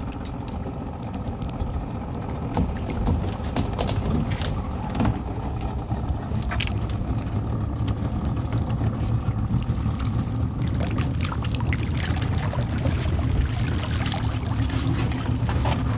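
Small boat's outboard motor running steadily at idle. After about ten seconds, water splashes and streams off a net full of sardines as it is hauled out of the water.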